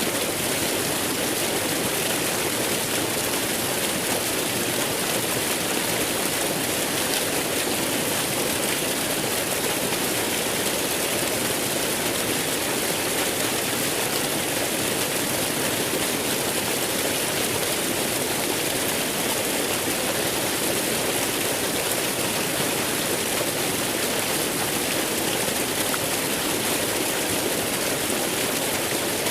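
Waterfall: falling water rushing steadily, an even hiss with no change in level.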